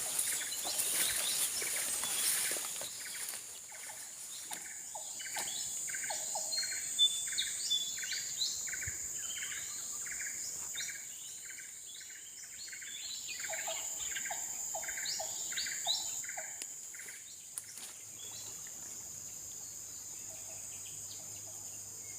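A bird calling a long series of short repeated notes, about two a second, over a steady high-pitched insect drone; a lower run of notes joins in partway through.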